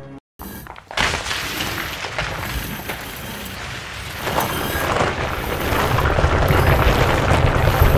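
Sound effect of a concrete wall cracking and crumbling. A sudden crack comes about half a second in, then a continuous noise of breaking and tumbling rubble, which swells into a deep rumble of falling chunks from about four seconds on.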